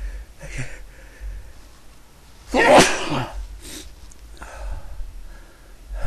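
A person sneezing once, loudly and suddenly, about two and a half seconds in, with short breaths before and after. It is part of a sneezing fit that the person puts down to an allergy to something unknown.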